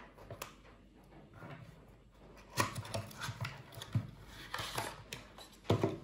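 Small cardboard charger box being opened by hand: faint clicks at first, then from about two and a half seconds in busy rustling and scraping of the cardboard and paper, with a few louder scrapes, the loudest near the end.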